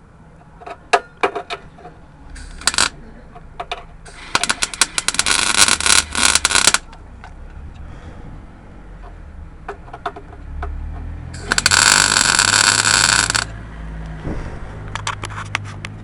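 Electric welder laying short runs of weld on a steel repair plate on a van's crossmember: two crackling bursts of about two seconds each, with a few brief tack-like blips before them.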